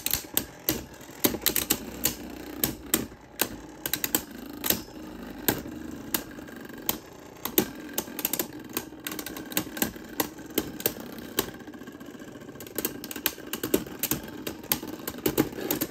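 Two Beyblade Burst tops, Astral Kitty and Wind Knight, spinning against each other on a plastic stadium floor. They clack together in many quick hits over a steady spinning whir. The hits come thick and fast at first, thin out in the middle, and pick up again near the end.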